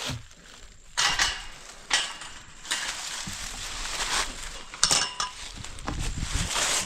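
A few sharp clinks and knocks, about a second in, near two seconds and a double one near five seconds, among a scraping rustle.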